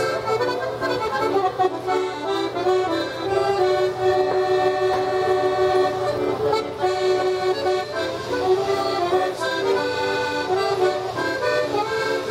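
Small piano accordion playing a melody over held notes, the tune moving on without a break.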